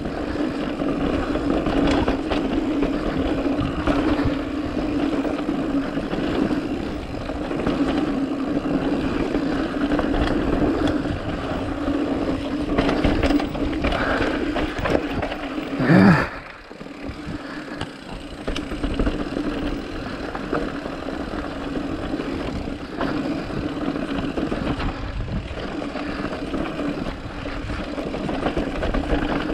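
Mountain bike rolling fast down a rough dirt trail: a steady tyre and wind noise with a low hum and many small knocks and rattles over bumps. A louder surge about 16 seconds in, then it briefly drops.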